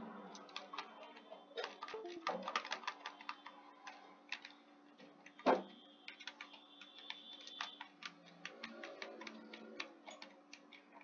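Typing on a computer keyboard: a run of irregular keystroke clicks, with one louder key strike about halfway through, over a faint steady hum.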